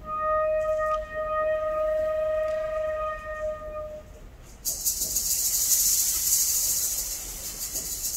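Concert band music: a single held woodwind note, close to a flute in timbre, sustains for about four seconds and fades out. Then a steady, high hissing shimmer from the percussion comes in and carries on to the end.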